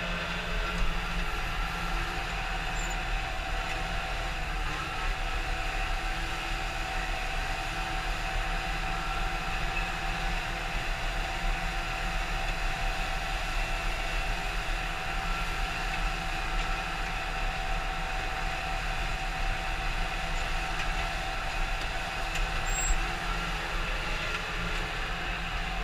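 John Deere 6110 tractor's four-cylinder diesel engine and drivetrain running steadily, heard from inside the cab, with a constant low drone and steady whining tones over it.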